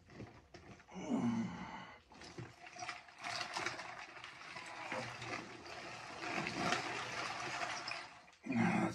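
Ice water sloshing and loose ice chunks clattering and grinding in an ice bath as a man shifts lower into it. A short voiced groan comes about a second in and another near the end.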